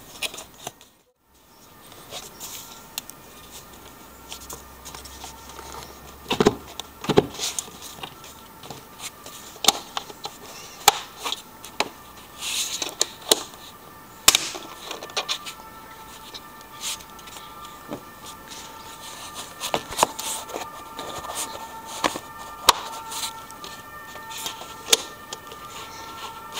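Hands handling the plastic air filter housing and intake parts of a BMW E46 engine bay: irregular sharp clicks and knocks of plastic against plastic, a few louder ones about six to seven seconds in and again around fourteen and twenty seconds.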